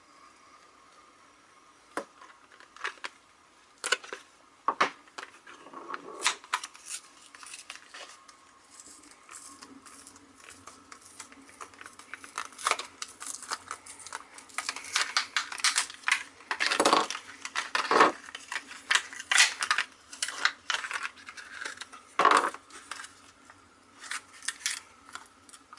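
A Beyblade Burst single pack being opened and handled: packaging being worked open, with scattered sharp clicks and clatters of hard plastic parts. The clicks are sparse at first, then come thicker and louder in the second half.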